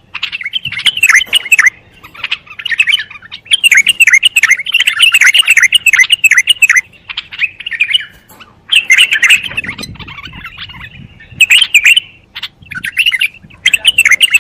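Bulbul singing: fast runs of bright, chirping notes in phrases of several seconds, broken by short pauses about two seconds in, around seven to eight and a half seconds in, and near twelve seconds in.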